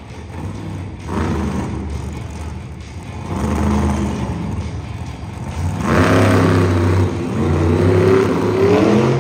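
Megalodon monster truck's supercharged V8 revving hard in repeated surges, about four, as the truck spins in circles on the arena dirt, climbing in pitch near the end.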